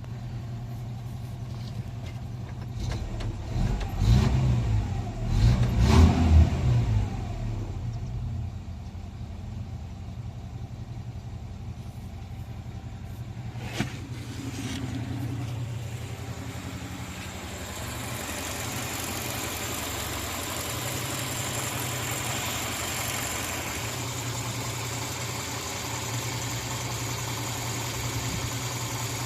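Moskvich 2140's four-cylinder petrol engine idling, revved up and back down twice about four and six seconds in, then settling to a steady idle. A single sharp click comes about halfway through.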